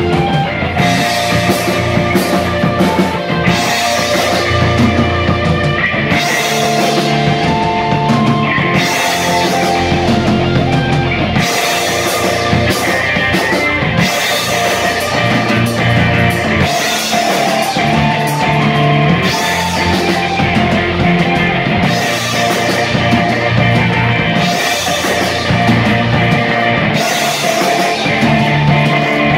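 A rock band playing live: electric guitar, electric bass, keyboard and drum kit, loud and continuous.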